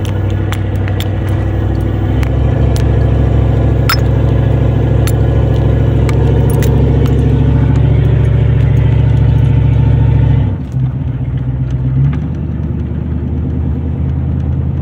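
A 7.4 L 454 big-block V8 in a Chevy 2500 pickup pulling along the road, loud, with an open exhaust: it splits into a Y after the manifolds and runs with no catalytic converter or mufflers. Heard from inside the cab, with scattered light clicks and rattles in the first several seconds. About ten and a half seconds in, the engine note drops off suddenly and settles lower.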